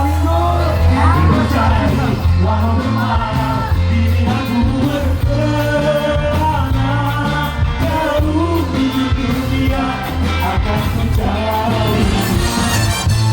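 A live rock band playing on stage, with a heavy steady bass line under a wavering lead melody and singing.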